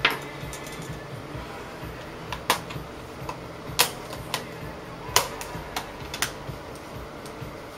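Plastic clicks of a laptop's LCD bezel snapping into place as fingers press its tabs home, about five sharp clicks a second or so apart.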